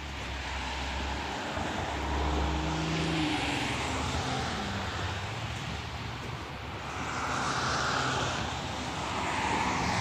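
Cars passing on a wet road: tyre hiss swells and fades as vehicles go by, about two seconds in and again near eight seconds. One engine note drops in pitch as it passes.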